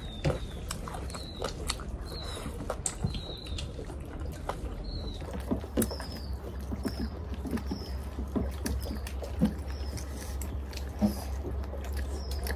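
Close-up eating sounds: wet chewing and mouth clicks, and fingers working through rice on a plate. Behind them a bird chirps over and over, short falling chirps about one to two a second.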